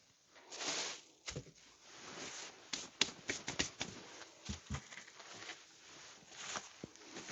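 Hand work on foam for a motorcycle seat: irregular scuffing and rustling strokes with many sharp clicks and taps, and a few dull knocks about a second in and again around four and a half seconds.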